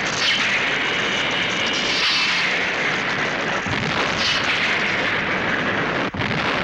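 Loud, sustained explosion roar, a dramatic blast sound effect, dipping out briefly near the end.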